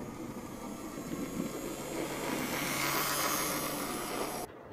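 Model train running on the layout: a steady motor hum under whirring wheel and track noise, growing louder over the last two seconds as it comes closer, then cutting off suddenly near the end.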